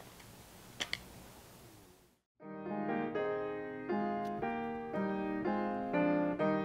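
Faint room tone with a couple of small clicks, then after a brief gap, about two seconds in, piano music starts: a run of struck notes and chords.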